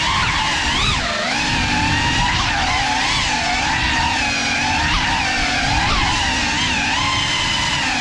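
Brushless motors and propellers of a Cinelog35 ducted cinewhoop FPV drone in flight: a continuous whine whose pitch keeps rising and falling with the throttle, over a steady rush of prop wash.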